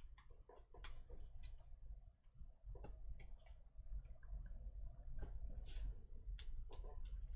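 Hobby knife blade cutting small parts out of a thin brass photo-etch fret on a cutting mat: a scattering of short, sharp clicks at uneven intervals, over a low steady hum.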